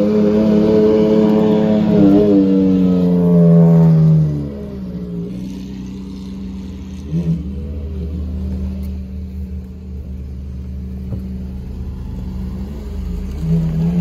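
Supercar engine accelerating hard, a loud many-toned engine note that glides down in pitch and fades about four seconds in. A lower, steady engine rumble continues after, with a short rise in revs about seven seconds in and another near the end.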